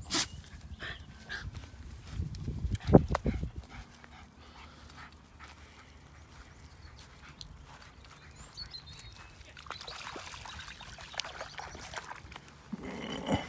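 A dog's noises close by, with a brief loud thump about three seconds in.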